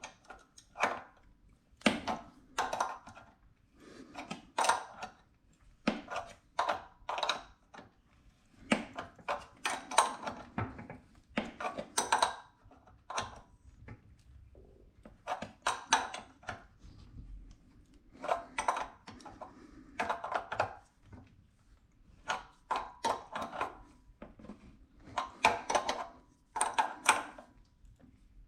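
A hand tool clicking and knocking against the fitting in irregular clusters of sharp strokes, as a new hose-connection valve is tightened onto a pressure washer pump.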